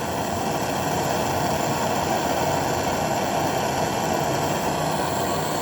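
Soldering torch flame hissing steadily while heating a copper pipe fitting. It cuts off with a click near the end.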